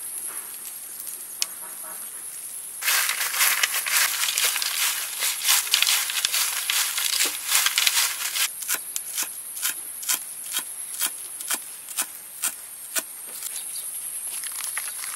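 Crisp deep-fried grasshoppers rustling and crackling as a hand tosses them on a plate, starting about three seconds in, then a run of sharp, evenly spaced clicks about two a second. A steady high insect drone runs underneath.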